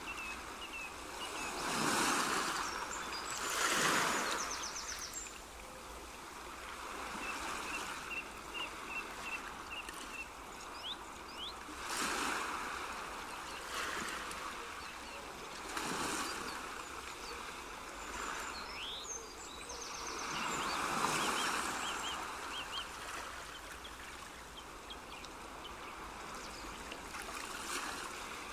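Water running and surging in slow swells every few seconds, like surf washing in, with short high chirps and trills over it.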